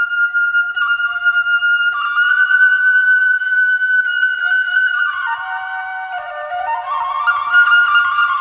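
Washint, the Ethiopian end-blown bamboo flute, playing a melody: one long held note for about five seconds, then a run of notes stepping down and climbing back up near the end.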